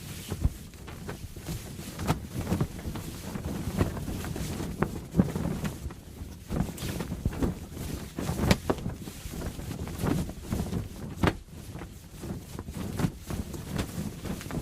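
A ship's sail flapping in strong wind, snapping and cracking at irregular moments over a steady low rush of wind.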